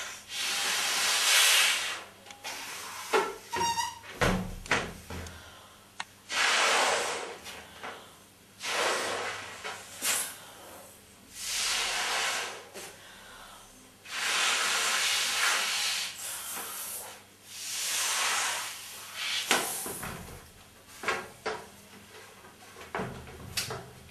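A large latex balloon being blown up by mouth: repeated long breaths rushing into it, each lasting a second or two, with short pauses and small clicks between breaths.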